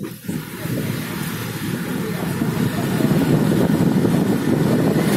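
A vehicle running steadily with engine and road noise, heard from on board. The noise builds over the first few seconds, then holds.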